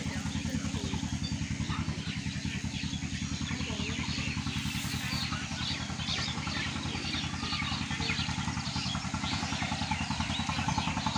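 A small engine idling steadily with a fast, even low throb, while small birds chirp in short high notes over it.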